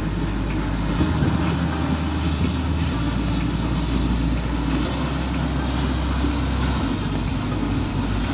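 Kubota combine harvester's diesel engine and threshing machinery running steadily as it cuts ripe rice.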